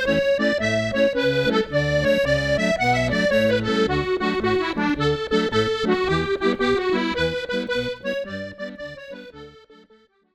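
Accordion playing a Scottish 6/8 jig, a running melody over pulsing bass-and-chord accompaniment, fading out over the last two seconds.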